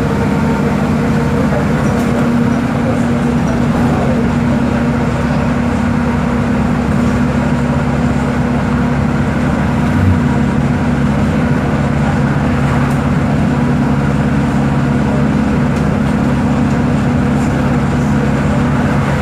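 Volkswagen 17.230 OD bus's diesel engine running at a steady, unchanging speed, with one brief low thump about halfway through.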